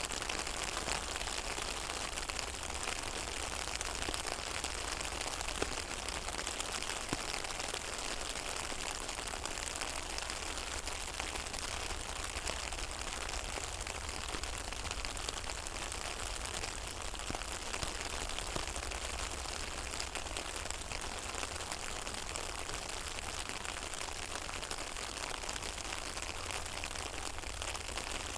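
Rain falling on a pond: a steady patter of many small drops hitting the water, with a low steady rumble underneath.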